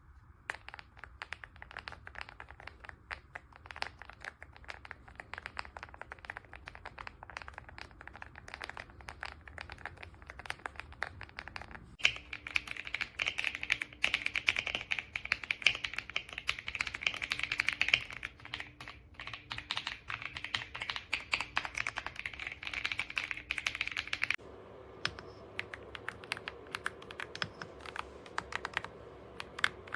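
AULA F99 mechanical keyboard with pre-lubed linear switches being typed on rapidly: a dense, continuous stream of key clacks. The tone of the typing changes twice, brighter and louder in the middle stretch, then duller near the end.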